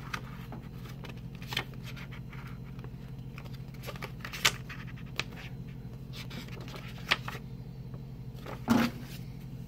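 Paper booklet being handled and its pages turned: scattered rustles with a few sharp clicks and snaps, over a steady low hum.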